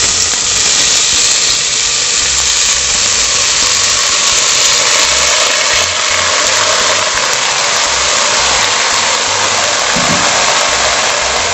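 Soaked carioca beans poured from a plastic bowl into a metal pressure cooker pot: a loud, steady rattling rush of beans falling onto the pot and onto each other.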